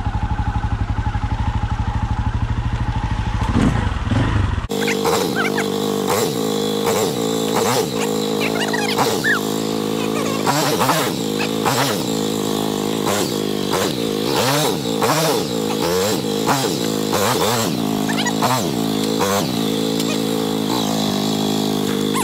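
Dirt bike engine running close by: a low steady rumble at first, then from about five seconds in the throttle is blipped over and over, the pitch rising and falling in short bursts with scattered clicks and knocks, as the bike picks its way over slick rock and leaves.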